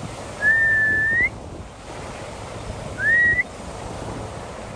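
A person whistling twice to call a dog: a long note that rises at the end, then a shorter upswept one, over steady wind noise on the microphone.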